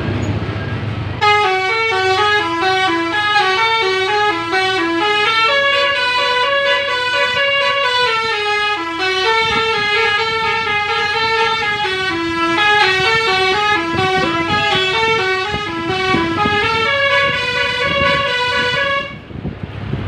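Bus basuri telolet horn, an electric multi-trumpet melody horn, playing a quick tune of short stepped notes. It starts about a second in, sounds for about eighteen seconds and cuts off near the end, over the bus engine's low running hum.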